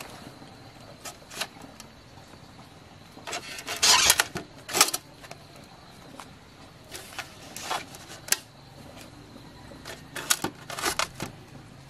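Leaf-wrapped sticky rice cakes being lifted off a tray and set one by one into a metal pot: scattered soft knocks and leaf rustles. The loudest handling comes about four seconds in, with more near the end.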